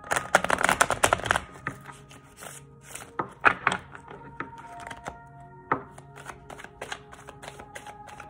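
Tarot cards being riffle-shuffled: a rapid fluttering run of card clicks for about the first second and a half. After it come scattered sharp card taps, and near the end a quicker patter of clicks as the deck is shuffled overhand.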